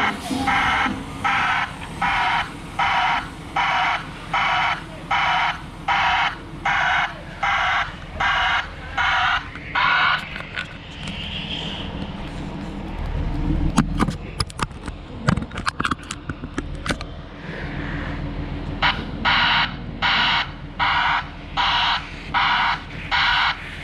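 Backup alarm on a Grove truck crane beeping steadily about once a second, falling silent for several seconds partway through and then starting again, over the crane's engine running. A few knocks and clatters sound while the alarm is paused.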